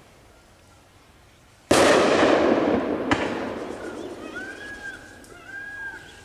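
Firecrackers exploding, set off to turn a wild elephant standing in a lake: a loud bang about two seconds in and a smaller one about a second later, each with a long echoing tail.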